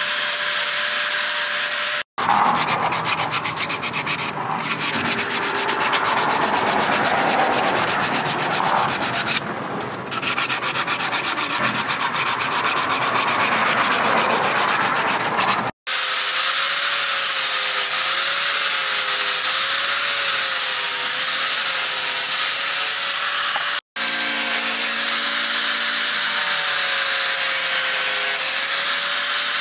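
An electric angle grinder with a sanding pad running against a steel knife blade, its motor hum wavering as the pad is pressed and eased along the blade. In the long middle stretch the grinder's hum is gone and there is a rough, steady rasp of sandpaper rubbed over a wooden knife handle by hand.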